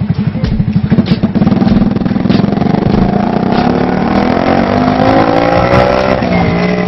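Small motorcycle engine ticking over with an even putter, then revving and pulling away, its pitch climbing steadily over several seconds as it accelerates.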